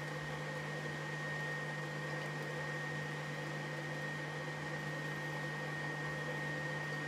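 Steady hum and hiss of a kitchen fan running, with a thin constant high whine over it.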